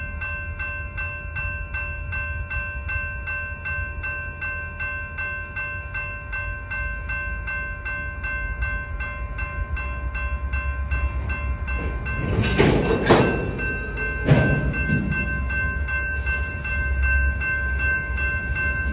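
Grade-crossing warning bell ringing in steady, even strokes while a slow freight train of loaded flatcars rolls over the crossing with a low rumble. About two-thirds of the way through come two louder clattering bursts from the passing cars.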